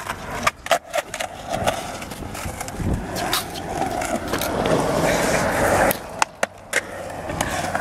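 Skateboard wheels rolling on concrete, with sharp clacks of the board hitting the ground now and then; the rolling grows louder and stops suddenly about six seconds in.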